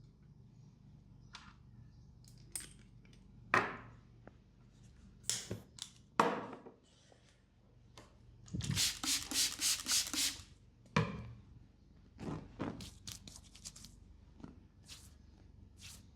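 Hands rubbing and slapping on skin during a massage: single strokes at first, then a fast burst of about six strokes, roughly three a second, near the middle, followed by lighter strokes.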